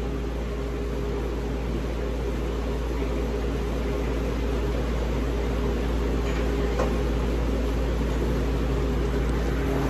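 Steady mechanical hum of running shop machinery, a few steady low tones slowly getting a little louder, with a couple of faint ticks.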